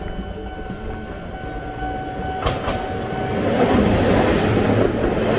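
Level-crossing warning bell ringing in a steady repeating pattern, then a Toyama Chihō Railway 14760-series electric train running over the crossing, its wheel-on-rail noise swelling from about three seconds in and covering the bell.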